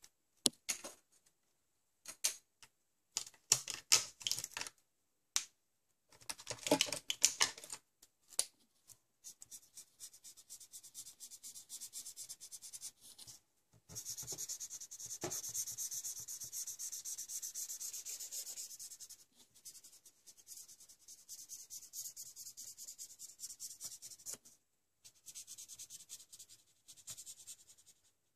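Felt-tip marker colouring on paper: irregular scratches and taps for the first several seconds, then fast, continuous back-and-forth scribbling strokes from about nine seconds in, with a few brief pauses.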